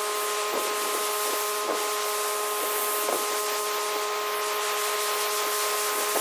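Pressure washer spraying concrete: a steady hiss of the water jet over the machine's constant whine.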